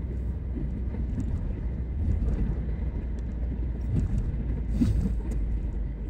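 Steady low rumble of a car in motion, heard from inside the cabin: engine and tyre noise with no sharp events.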